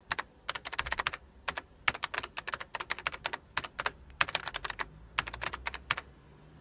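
Quick, irregular runs of sharp clicks, like keys being typed on a keyboard, stopping about six seconds in.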